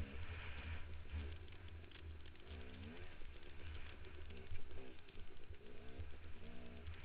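Dirt bike engine pulling up a steep, loose hill, its pitch rising and falling several times, over a steady low rumble.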